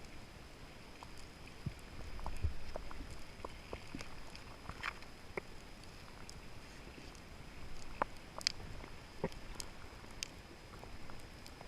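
Underwater ambience: a low hiss with scattered sharp clicks and ticks at irregular intervals, and a faint steady high whine.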